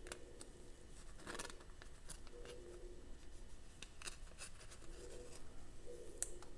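Faint scattered clicks and rustles of trading cards and plastic card sleeves being handled.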